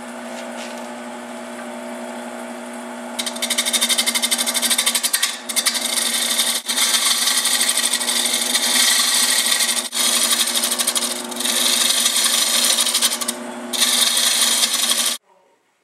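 Wood lathe running with a steady hum, then a turning tool cutting into the spinning segmented wooden bowl: a loud hiss of shavings in several passes that starts about three seconds in, breaks off briefly a few times and stops abruptly near the end.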